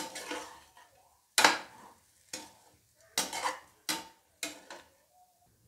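Metal ladle stirring and scraping dry, crumbly finger-millet (ragi) puttu in a metal pot. About six quick scraping strokes, each starting sharply and fading.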